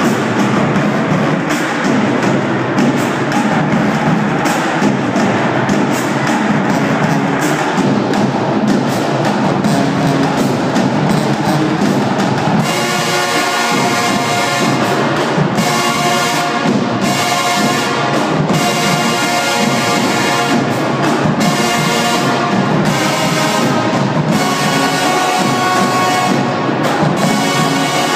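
High school marching band rehearsing. The drumline plays alone at first, and about halfway through the brass comes in loud over the drums: trumpets, trombones and sousaphones together.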